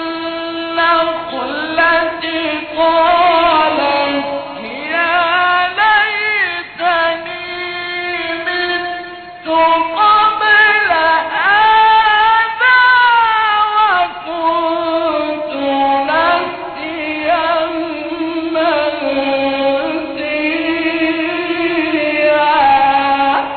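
A man's solo unaccompanied voice chanting in Arabic in the Egyptian religious style: long held notes with melismatic ornaments and pitch slides, pausing briefly for breath about nine and a half seconds in.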